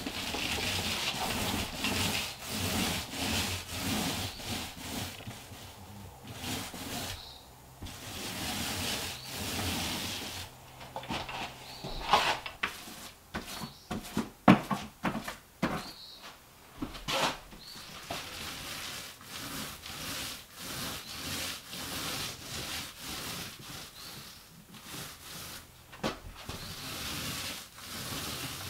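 Repeated rubbing strokes of a paint roller being rolled up and down a drywall wall, about once a second, with a cluster of sharper knocks and clicks in the middle.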